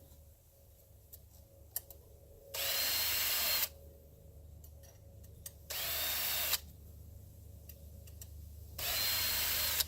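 Drill spinning a chainsaw-sharpening stone against the chain's cutters in three short bursts of about a second each, each starting with a quick rising whine as the drill spins up. Light clicks fall between the bursts.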